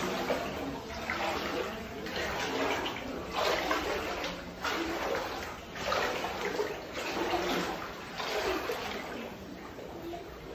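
Muddy floodwater sloshing and splashing inside a house as someone wades through it, in surges about once a second with each step.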